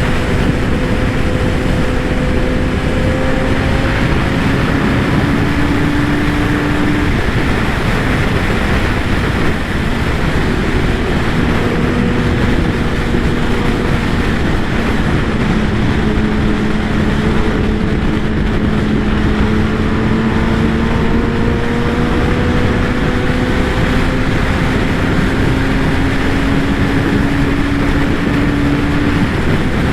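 Kawasaki ZX-10R inline-four sportbike at cruising speed: heavy steady wind rush over the onboard microphone with the engine note underneath. The engine's pitch climbs slowly over the first several seconds, fades, then returns and climbs gradually again.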